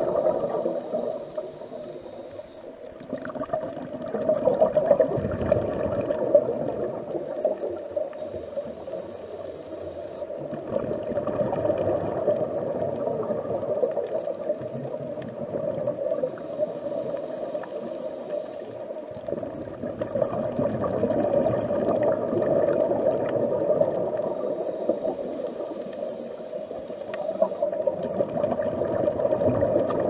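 Underwater ambience: a steady muffled rush with gurgling bubbles, swelling and easing in slow waves every several seconds.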